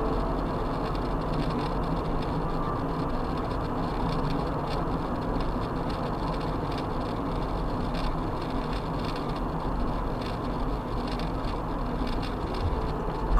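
Steady road and tyre rumble with engine hum inside a car cabin, driving at about 50 km/h.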